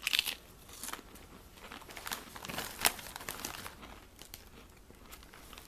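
Potato chip bag crinkling as it is handled, in irregular crackles, loudest right at the start and again about three seconds in.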